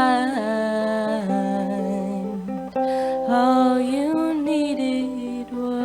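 A woman singing with acoustic guitar accompaniment, holding long notes with the melody sliding between them.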